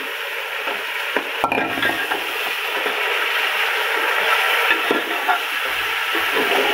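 Raw chicken pieces sizzling in hot ghee in a steel pot, frying over high heat. A metal slotted spoon stirs them and scrapes and clicks against the pot now and then. The sizzle builds a little over the first few seconds.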